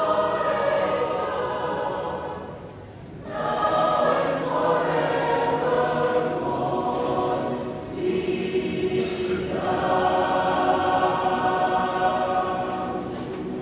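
Mixed choir singing in harmony, holding long chords, with a brief break for breath about three seconds in and a change of chord about eight seconds in.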